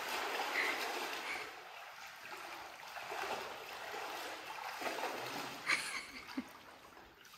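Running, splashing water: a steady rushing wash that fades over the last couple of seconds.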